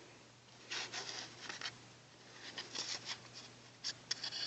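Handling noise: short bouts of scratchy rubbing and rustling, a few clusters about a second apart, over a faint steady low hum.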